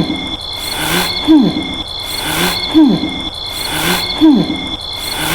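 Cartoon-style snoring sound effect on a loop: four snores about a second and a half apart, each a strong falling pitched snore followed by a softer breath, over a steady high whine.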